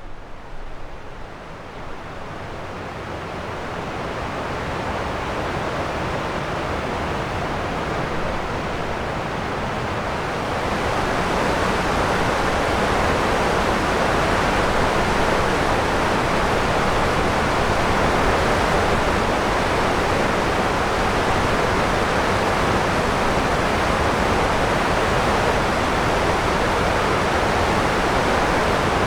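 Small river flowing over rocks, a steady rush of water. It fades in and grows a little louder about eleven seconds in.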